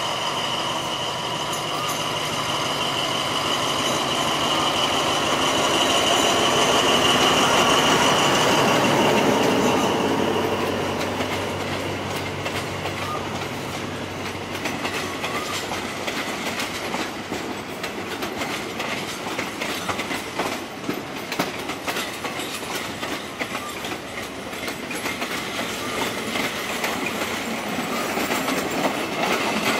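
A diesel-hauled passenger train departing at low speed. For about the first ten seconds the locomotive passes with a steady high wheel squeal over its engine noise, loudest near eight seconds in. The coaches then roll by with a continuous clickety-clack of wheels over rail joints.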